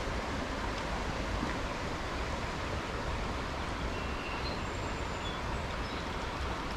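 Steady rush of a fast-flowing stream's current, with a low rumble of wind on the microphone and a few faint high chirps near the middle.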